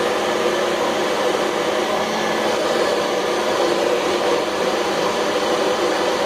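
Hair dryer running steadily, blowing air: an even rushing noise with a faint steady hum.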